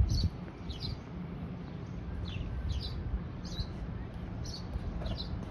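A small bird chirping repeatedly: short, high chirps that fall in pitch, about one or two a second, over a steady low background rumble.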